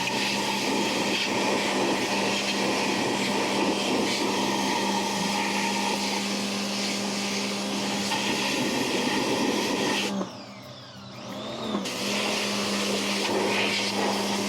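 Electric blower running, a steady motor hum under a loud rush of air; it shuts off about ten seconds in and is switched back on a second and a half later.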